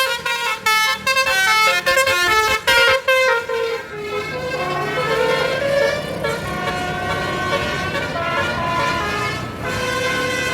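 Multi-tone 'telolet' basuri bus horn playing a melody: a quick run of short stepped notes for the first three seconds or so, then longer held and sliding notes.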